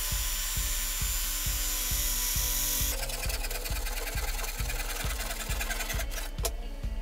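A circular saw cutting through a thick cherry blank; about three seconds in it stops and a handsaw takes over, sawing with quick strokes through the rest of the cut. Background music with a steady beat runs underneath.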